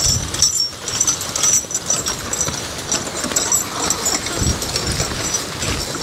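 A Belgian draft horse walking and dragging a loaded wooden stone boat over dry grass, with wind gusting on the microphone.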